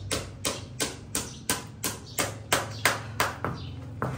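Farrier's hammer striking in a steady run of sharp, ringing blows, about three a second, while shoeing a horse.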